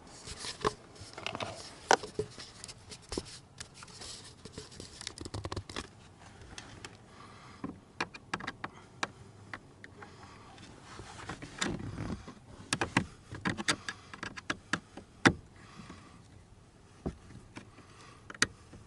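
Hand tools unscrewing T20 Torx screws from plastic lower-dash trim: irregular small clicks, taps and short scrapes of metal on screws and plastic.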